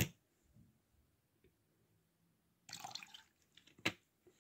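Faint water sounds in a plastic foot-soaking basin: a short splash about three seconds in as a hand reaches into the water, then a sharp drip-like click.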